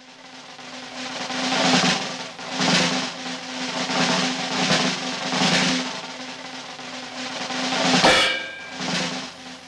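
Background music of drum rolls that swell and fade again and again over a held low note.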